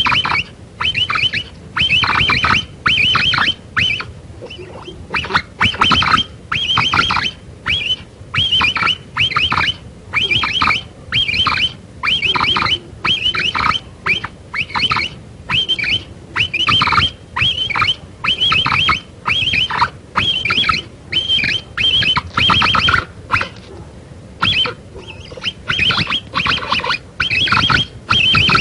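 Capybara calls: short bursts of rapid clicking chatter, repeating about once or twice a second.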